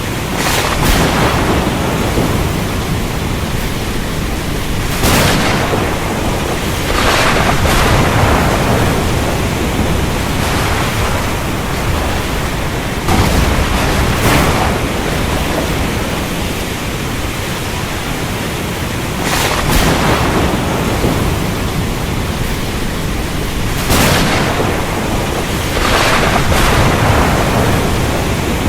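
Heavy rain falling steadily in a thunderstorm, with sharp thunder cracks breaking in about seven times and rumbling away over a second or two each.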